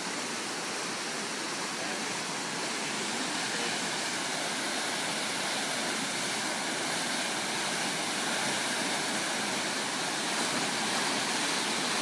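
A river in flood, its water rushing and hammering through under a bridge in a steady, unbroken noise, with the river swollen far above its normal depth.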